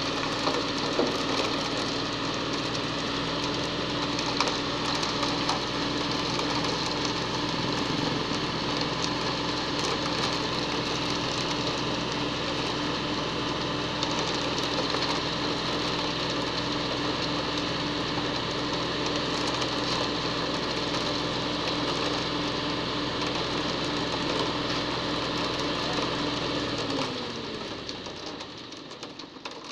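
Concrete mixer truck's engine running steadily at raised revs to turn the drum while it discharges wet concrete down the chute. Near the end the engine note falls away and the sound drops as it throttles back.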